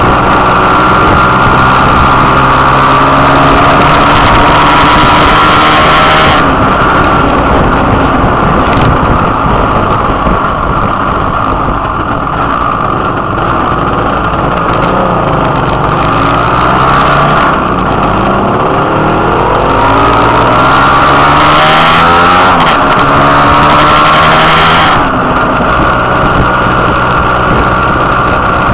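Motorcycle engine under way, pulling through the gears: its pitch climbs, drops and climbs again several times. Heavy wind rush on the microphone comes and goes over it.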